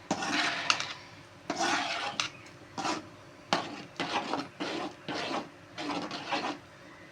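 Spoon scraping around a kadai, stirring spice powders into the oil and fried okra in about nine short strokes.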